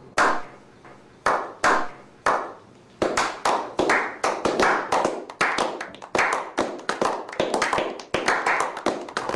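A handful of men doing a slow clap: single claps spaced about a second apart that pick up speed and build into quick, continuous applause about three seconds in.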